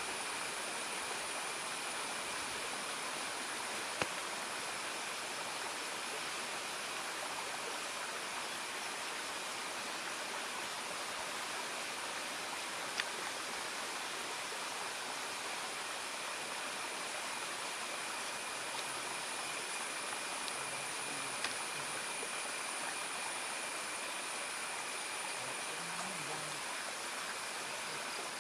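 Steady outdoor forest ambience: an even hiss with a constant high-pitched insect drone, broken by a few faint clicks.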